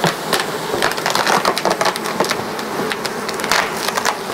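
Honeybees buzzing over an opened hive, with irregular crackling from a clear plastic cover sheet being peeled off the top of the frames.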